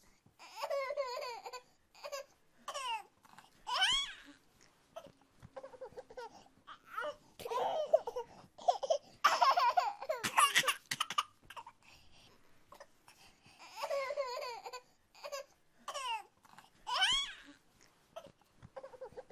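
A toddler babbling and laughing in short high-pitched bursts, with a few light knocks as plastic toys are handled.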